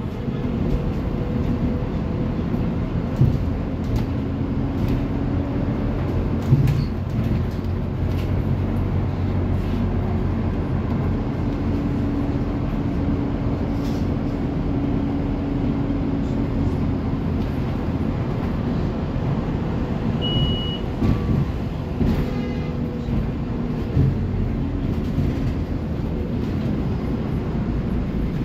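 Scania city bus driving in service, heard from inside: steady engine hum and road noise with scattered knocks and rattles. A short high beep sounds about twenty seconds in.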